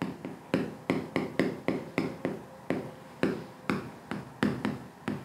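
Chalk knocking against a blackboard in quick, irregular taps, about three or four a second, as words are written out.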